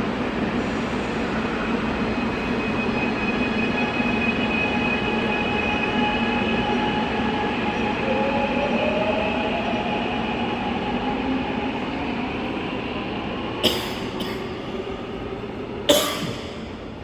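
Subway train running, with steady high whining tones and a lower tone that rises about halfway through. The sound eases off over the last few seconds, and two sharp knocks come near the end, about two seconds apart.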